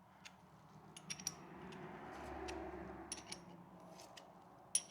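Small metal clicks and clinks from a chain breaker tool being turned to press a rivet pin out of a 520 motorcycle chain, with a sharper click just before the end.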